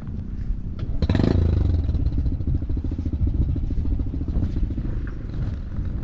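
A motorcycle engine running steadily close by, with a fast even pulse, louder from about a second in.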